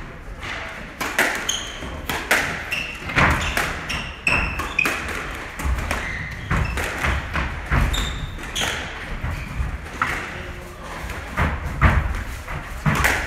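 Squash rally: the ball is struck by rackets and smacks off the walls in a quick run of sharp hits, while the players' court shoes squeak in short high chirps on the hardwood floor.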